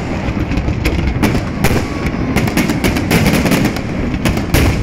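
Aerial fireworks bursting in a rapid, continuous run of bangs and crackling, with a heavier bang near the end.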